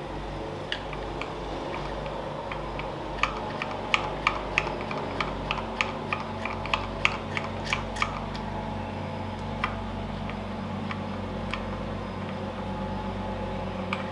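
Small metal clicks of steel washers and nuts being fitted by hand onto the studs of a tractor gearbox top cover, a quick run of them from about three to eight seconds in and a few scattered after, over a steady low hum.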